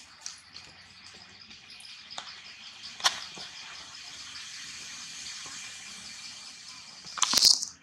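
Insects chirping steadily in a fast, high pulsing pattern, with a hiss of insect noise swelling in the middle. A sharp click about three seconds in and a short, loud burst of noise near the end stand out.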